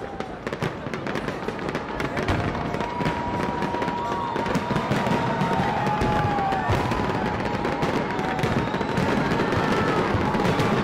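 Aerial fireworks going off in rapid, dense succession, a steady run of bangs and crackling that slowly gets louder.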